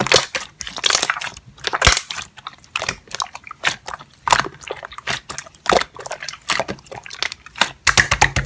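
Slime being squeezed and worked by hand, giving a quick, irregular run of sticky clicks and pops.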